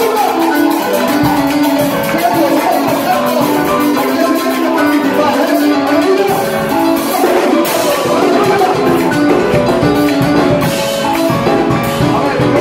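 Electronic keyboard playing a worship song with a drum kit keeping the beat.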